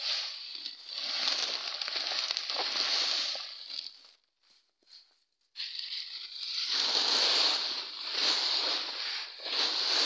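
Dry harvested pods sliding and spilling out of a woven plastic sack onto a tarp, a dry rustle of pods and sack in two stretches with a short pause about halfway.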